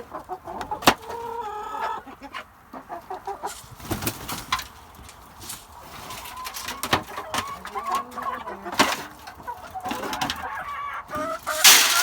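Chickens clucking, with several sharp knocks and clatter, and a loud rush of noise just before the end.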